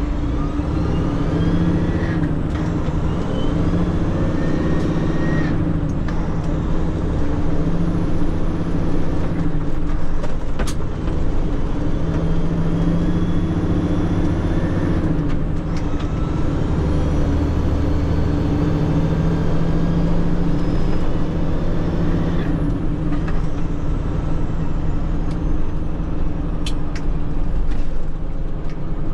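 Tractor-trailer tanker's diesel engine heard from inside the cab while driving. Its pitch climbs and then drops several times as the driver shifts up through the gears.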